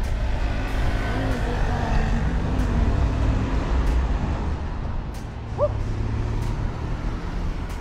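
Steady low rumble of road traffic, with a short rising squeak about five and a half seconds in.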